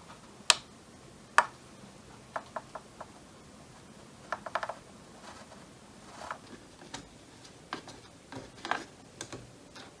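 Button and roller-wheel clicks on a Radiomaster TX16S radio transmitter as it is operated: two sharp clicks in the first second and a half, then lighter irregular clicks and short clusters of clicks. The roller-wheel encoder is faulty and scrolls only one way.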